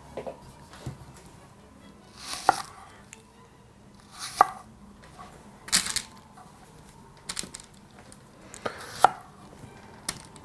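A knife cutting young onions on an end-grain wooden chopping board: about five separate knocks of the blade on the board, spaced roughly a second and a half apart, some with a short rustle.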